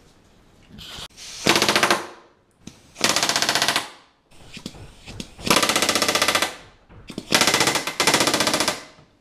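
Pneumatic rivet gun fitted with a mushroom set, driving rivets in four short bursts of rapid hammering with pauses between, as stiffener rivets are hand-bucked through an RV-7 elevator skin.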